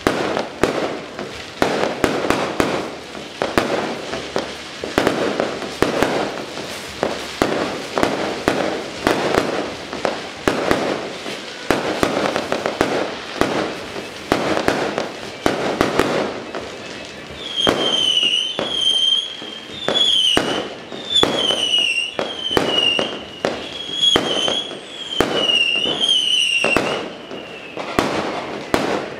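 Firecrackers and fireworks going off in a dense, irregular string of sharp bangs and crackling. From about two-thirds of the way in, a repeated high falling whistle, about one a second, sounds over the bangs.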